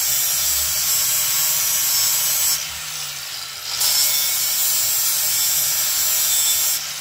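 Small handheld power tool working bare metal, running in two stretches with a short pause of about a second between them and stopping near the end.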